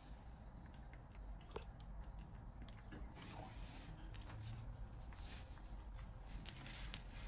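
Faint rustling of cloth and small clicks as a baby macaque is handled on a towel, over a low steady hum.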